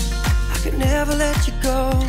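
Background pop music with a steady beat: a kick drum about twice a second under held chords and a wavering melody line.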